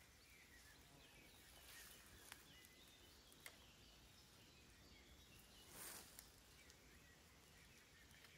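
Near silence: faint outdoor ambience with scattered small bird chirps, a couple of soft clicks, and a brief soft rush of noise about six seconds in.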